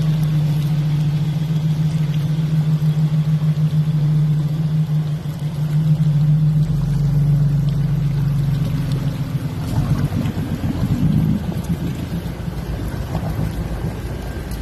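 Toyota Land Cruiser FZJ71's engine running under load as the truck wades through deep water, a steady drone. About ten seconds in the pitch wavers and rises briefly, then settles lower.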